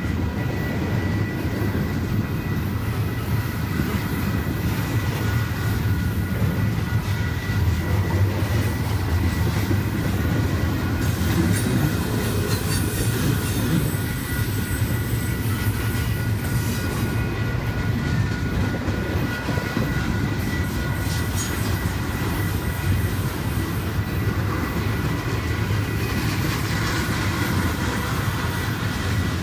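Double-stack container well cars of a freight train rolling past close by: a steady heavy rumble with the clacking of wheels over the rail, and a thin, steady high squeal from the wheels running through the whole pass.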